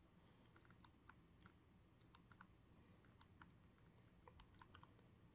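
Faint, irregular clicks of the Wahoo Elemnt Bolt bike computer's buttons being pressed again and again to scroll through its turn-by-turn cue sheet, over near silence.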